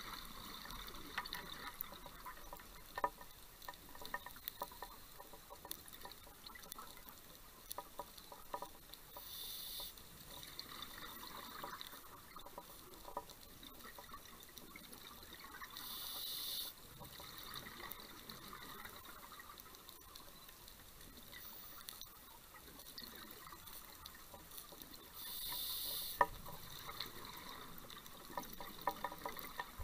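Scuba regulator breathing underwater: a hissing inhale three times, each followed by a few seconds of bubbling exhaled air, with scattered sharp clicks throughout.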